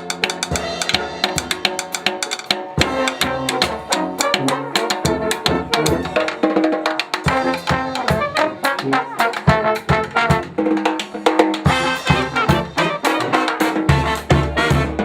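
Live brass band with trumpets and a drum kit playing an up-tempo tune, with a busy, unbroken drum beat under the horns.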